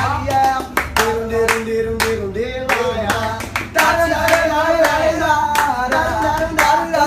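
Hands clapping a steady beat, with a voice holding a note about a second in and singing a wordless melody over the claps from about four seconds in.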